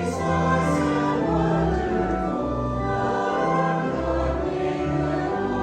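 Congregation singing a hymn in unison, with low sustained accompaniment notes beneath the voices; the notes change every half second or so.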